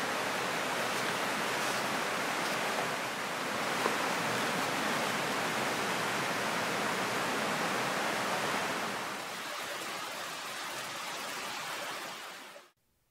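Steady rain falling, an even rushing hiss that drops a little about nine seconds in and cuts off abruptly near the end.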